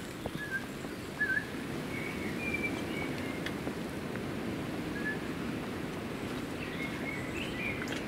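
Steady rain falling, with short, high bird chirps scattered through it, several in a quick run near the end.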